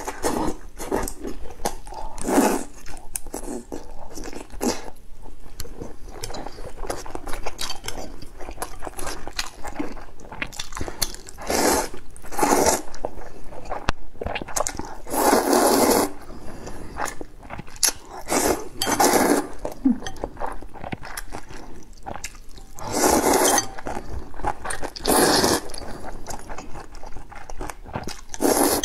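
Close-miked eating of luosifen rice noodles: wet chewing with many small clicks, and several loud slurps, each about a second long, as the soft rice noodles are sucked up from the spicy broth.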